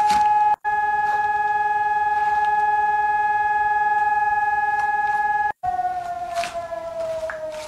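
A steady, siren-like tone that cuts out twice for an instant. After the second break, about five and a half seconds in, it slowly falls in pitch. A few faint clicks sound over it.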